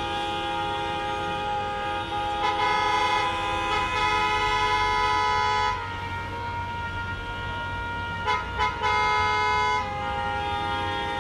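Car horns honking in a city traffic jam over the steady low rumble of engines, with several horns sounding at once. A louder horn blast is held from about two and a half seconds in to nearly six seconds, then come two short toots and another long blast near the end.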